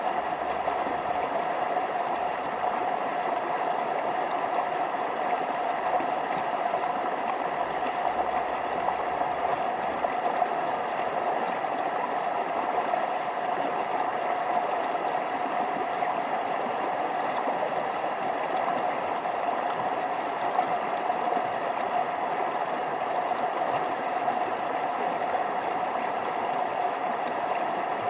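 Forest stream flowing over small waterfalls, a steady, even rush of water.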